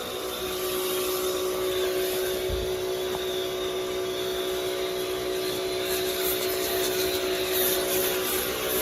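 Electric pressure washer running steadily, its motor and pump giving a constant hum under a spray hiss as it sprays foam through the foam gun.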